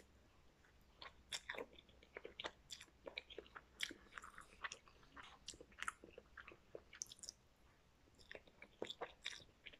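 Faint, close chewing of a mouthful of instant noodles: irregular short wet clicks of the mouth and jaw.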